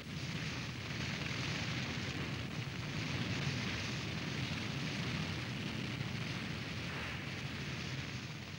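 Sound effect of a jungle fire burning in heavy rain: a steady rushing noise with no break.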